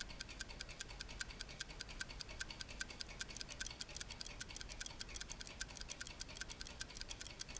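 Mechanical watch ticking: fast, even ticks from the escapement, several a second.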